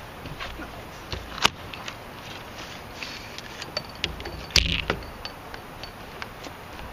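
Spinning reel being cranked and rod and tackle handled on a bass boat: scattered sharp clicks, a loud click about a second and a half in, and a heavier thump about four and a half seconds in.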